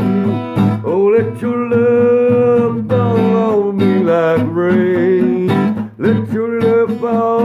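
Acoustic guitar strummed under a voice singing long held notes that bend and waver. This is a self-written song performed solo.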